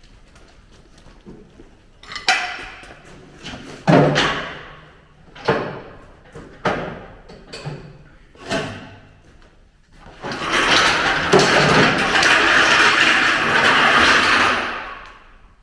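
Metal banging in a workshop: about five heavy knocks at uneven intervals, each ringing briefly, as parts of a car-body rotisserie are knocked into place. Then about four seconds of loud, harsh, steady noise that stops near the end.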